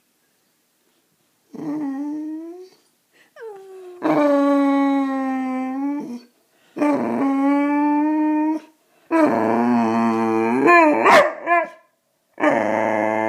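Boxer dog howling and whining in about five drawn-out calls, each a second or more long with short gaps between. One near the middle wavers up and down in pitch. This is the dog's attention-seeking 'talking'.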